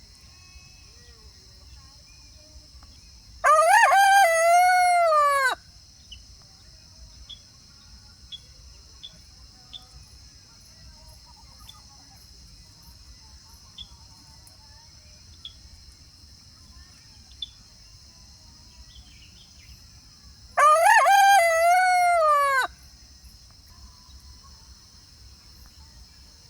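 Rooster crowing twice, each crow a loud cock-a-doodle-doo of about two seconds that falls in pitch at the end, with a long pause between them.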